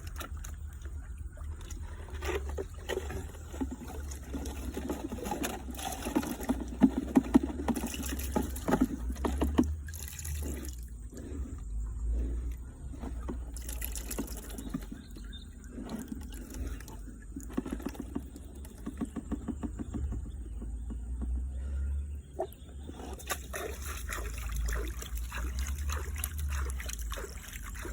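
Water splashing and trickling, with irregular knocks and clatters, over a steady low rumble.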